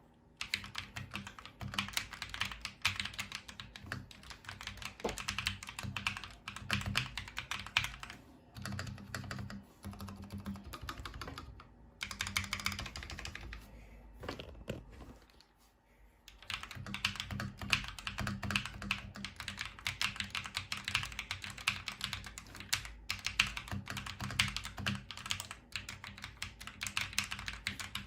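Typing on a newly built GMMK TKL mechanical keyboard with Akko V3 Creamy Yellow linear switches and Glorious Aura keycaps: rapid, continuous key clacks. There is a brief break about twelve seconds in and a pause of about a second around fifteen seconds in.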